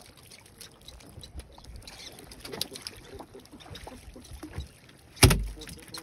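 Small knocks and clicks of a fisherman handling line and gear in a wooden boat on the water, with one much louder thump about five seconds in.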